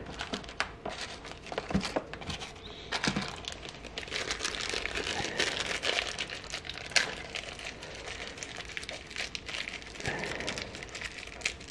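Clear plastic parts bag crinkling and rustling in the hands as it is opened and a small rubber part is taken out, an irregular patter of small crackles.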